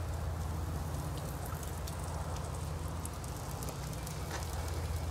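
Steaks sizzling and crackling over the fire on the grate of a homemade tank smoker as sauce is brushed on: a steady hiss with a few sharp pops, over a steady low rumble.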